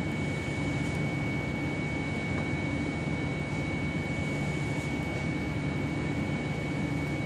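Propane forklift engine idling steadily, a low drone with a thin high whine over it.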